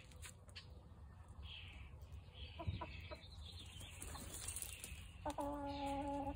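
Chickens clucking, with a few soft knocks; near the end one bird gives a single drawn-out call of about a second, the loudest sound here.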